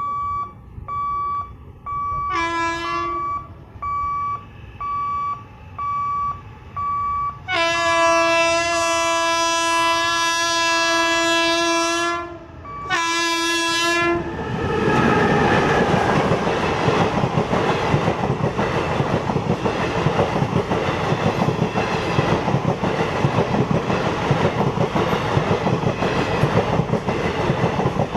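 A level-crossing warning buzzer beeping about once a second, then the Malda Intercity Express's locomotive horn: a short blast, a long blast of about four seconds and another short one. About halfway through the train reaches the crossing and passes, its wheels clattering over the rail joints.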